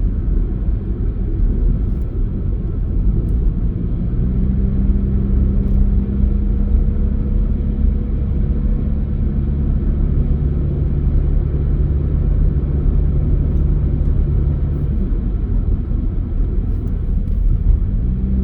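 Car driving, heard from inside: a steady low rumble of road and engine noise. The engine hum settles into a steady note about four seconds in, drops away around fifteen seconds, and comes back near the end.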